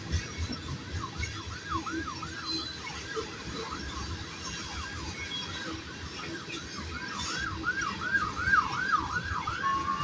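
Tank cars of a freight train rolling past with a low rumble and clicking wheels, while a siren wails in a fast rising-and-falling yelp, about three swoops a second. The yelp grows louder and stops shortly before the end.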